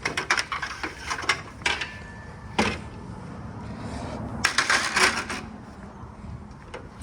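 Clicks, knocks and clatter of tools and parts being handled on the car, with one sharper knock about two and a half seconds in and a denser burst of clatter a little past the middle.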